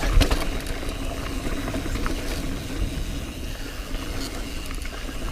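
Mountain bike rolling over a rocky trail section: tyres crunching over loose rock and the bike rattling, with scattered small clicks over a steady rumble.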